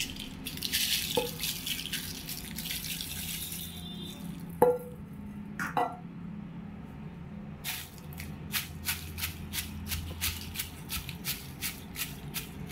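Fried dried red chillies with coriander and cumin seeds rattling and crackling as they are tipped into a stone mortar, with a few sharp knocks. From about eight seconds in, a stone pestle pounds them in quick, regular strokes.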